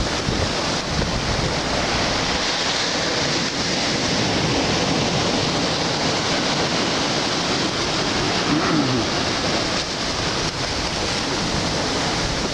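Sea surf breaking and washing up a sandy beach in a steady wash, with wind rushing over the microphone.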